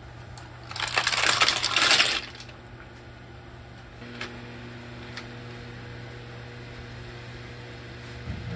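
Dongjuk clams (Mactra veneriformis) poured into a pan of boiling water, the shells clattering against each other and the pan for about a second and a half.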